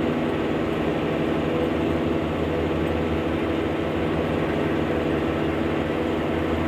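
Tractor engine running steadily under load while mowing turf, a constant low drone with a steady pitch.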